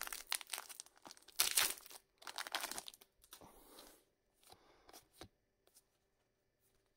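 A trading-card booster pack wrapper being torn open, with crinkling rustles for about the first three seconds and the loudest tear about a second and a half in. This is followed by a few softer clicks and rustles of the cards being slid out and fanned.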